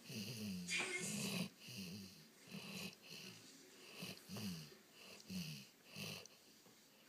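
A sleeping dog snoring: short wheezy snores about once a second, each with a pitch that slides downward, growing fainter toward the end.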